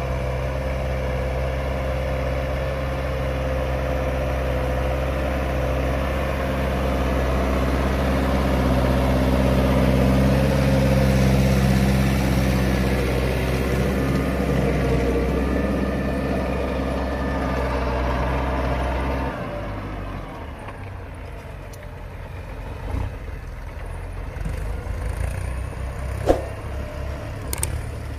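Hürlimann XT-909 tractor engine running steadily under load, pulling a rotary power harrow through stubble ground. About two-thirds of the way through, the steady engine note drops away to a lower, rougher rumble.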